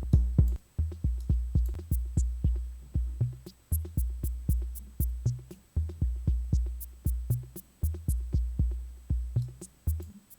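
Arturia DrumBrute analog drum machine beat played back from a recording: a fast, steady pattern of deep kick drums, several a second, with short, sharp clicky hits on top.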